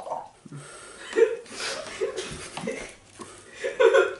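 Young people laughing and chuckling in several breathy bursts, the loudest near the end.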